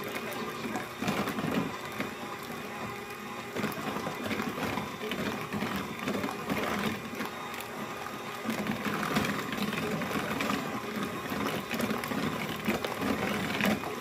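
KitchenAid electric hand mixer running steadily, its beaters whirring through runny brownie batter in a plastic bowl as the last egg is beaten in.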